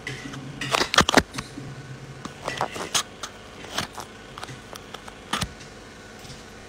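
A series of sharp clicks and knocks, like small objects being handled and bumped, the loudest cluster about a second in and a few more scattered after, over a faint low hum.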